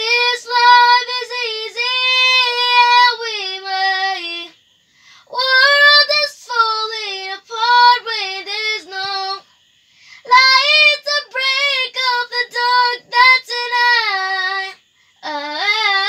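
A girl singing alone in a high voice, close to a clip-on lavalier mic, in long held phrases with short pauses for breath between them.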